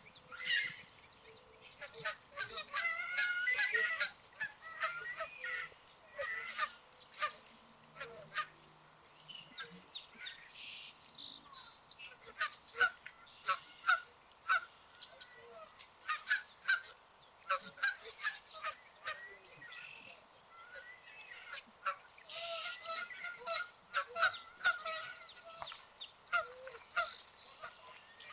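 A flock of Canada geese honking, with many short honks following one another and overlapping in quick succession.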